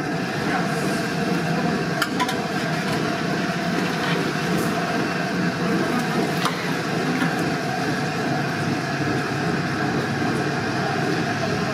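A few sharp metal clinks from a wire spider strainer knocking against a large metal cooking pot as boiled chicken is scooped out, over a steady background noise.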